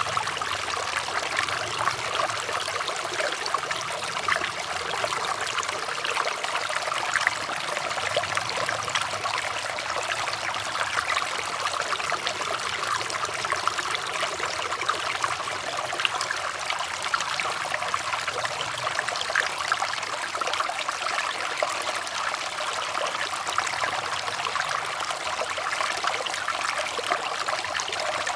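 Running water trickling and babbling steadily, a dense patter of small splashes without pause.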